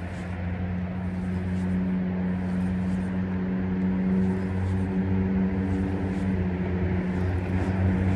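A steady low engine hum at a constant pitch, slowly getting louder, over a steady hiss.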